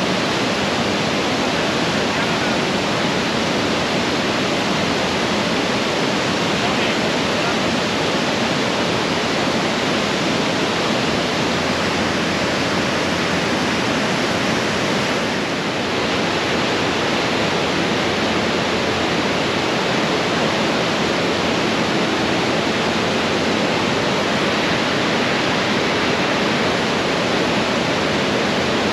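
Niagara River rapids: a steady rush of white water pouring over rocks, loud and even, dipping slightly for a moment about halfway through.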